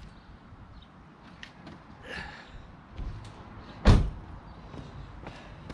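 The driver's door of a BMW E36 318i is slammed shut once, a sharp single thud about four seconds in, after a few lighter knocks and rustles.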